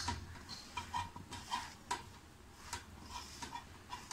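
A hand mixing and pressing cauliflower florets coated in damp gram-flour batter around a stainless steel bowl, with soft squishing and irregular light taps and clicks against the steel.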